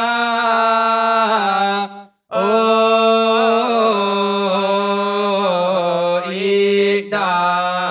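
A single male voice chanting a Vedic mantra in Sanskrit, holding long melodic notes that slide up and down. It pauses briefly for breath about two seconds in and again about seven seconds in.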